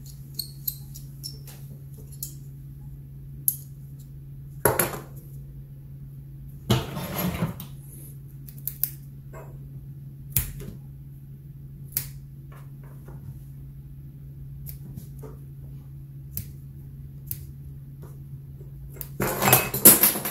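Small handling sounds of a kerosene lantern's wick and burner being worked on with small scissors: scattered light clicks and taps, with a few short rustles, the loudest near the end. A steady low hum runs underneath.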